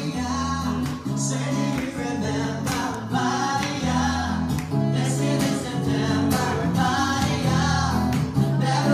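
An acoustic guitar played with a voice singing along to it, the chords held and ringing under the melody.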